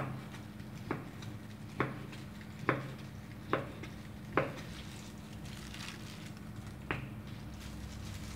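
Kitchen knife slicing raw liver and striking a wooden chopping board: sharp knocks about once a second, six in a row, then a pause and one more near the end. A steady low hum runs underneath.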